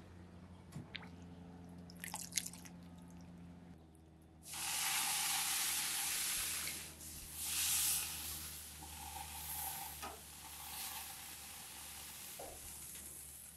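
Wet, water-soaked ears of corn in their husks sizzling on the hot grates of a gas grill; the sizzle starts suddenly about four and a half seconds in, swells again near eight seconds, then settles to a steady hiss. Before it, water dripping and light clicks of metal tongs over a low steady hum.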